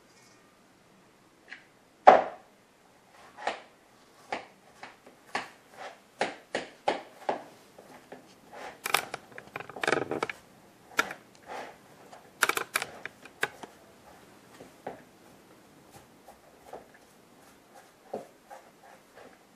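A fork scraping the strands of boiled spaghetti squash out of the rind, in short repeated strokes about two a second, thinning out over the last few seconds. A louder single knock comes about two seconds in.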